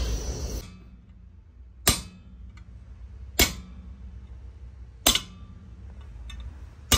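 Four separate hammer blows on a chisel held against a copper sheet on a steel stake, about one every one and a half to two seconds, scoring a line into the copper. Under a second in, a loud steady noise stops suddenly.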